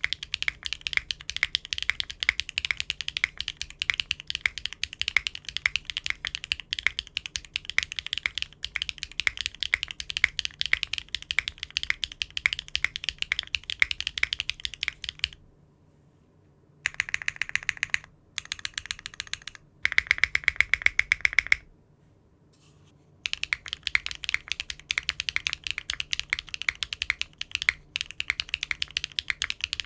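Mechanical keyboard with Cherry-profile keycaps being typed on fast, a steady stream of key clicks. About halfway through the typing stops, comes back in three short bursts with a slightly different tone, pauses again, then resumes steadily.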